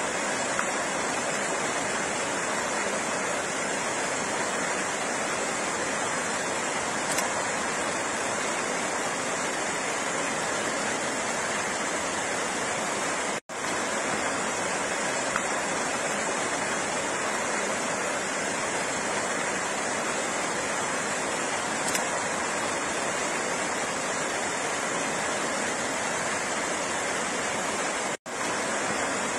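Flowing water, a steady even rush. It cuts out for a split second twice, about halfway through and near the end.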